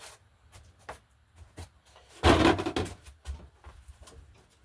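Tools and parts being handled: scattered clicks and knocks, with one loud clatter about two seconds in.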